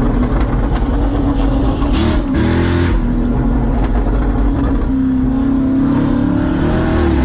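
Straight-piped C6 Corvette's LS2 V8 exhaust heard from inside the cabin, running loud under way. About two seconds in there is a short louder burst with a brief dip and rise in engine pitch, and near the end the engine pitch climbs slowly.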